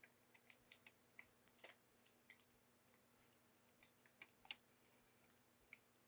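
Faint, irregular light clicks and taps of a glass build plate being fitted back onto a Creality CR-6 SE 3D printer's bed carrier, its small retaining cams being worked into place.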